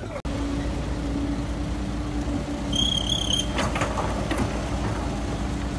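Diesel engines of an excavator and a dump truck running steadily while the excavator loads soil into the truck. About halfway through there is a brief high squeal, then a short rattle.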